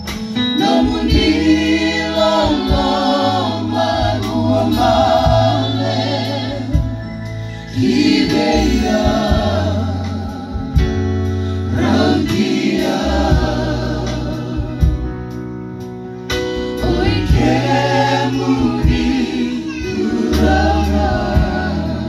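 A small group of singers singing a gospel song in phrases of a few seconds, through microphones and a loudspeaker, over a line of sustained low bass notes.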